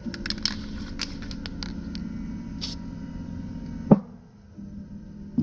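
A short hiss of an aerosol spray-paint can marking a piece of aluminum, about midway, amid a cluster of clicks early on and a sharp knock just before the four-second mark, over a steady low hum.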